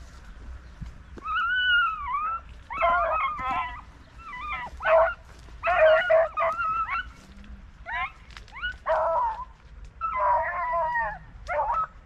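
Beagles baying on a rabbit hunt: a run of about eight loud, drawn-out pitched cries with short gaps, some bending up and down in pitch, the hounds giving tongue as they work a rabbit's scent.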